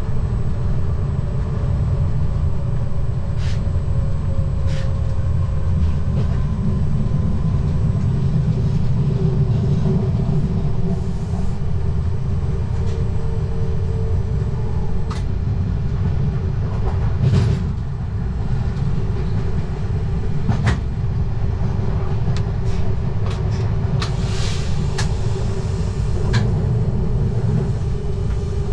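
Z20500 double-deck electric train running on the track, heard from the front cab: a steady low rumble with a steady hum over it. Scattered sharp clicks and knocks come through, the loudest about 17 seconds in and several close together near the end.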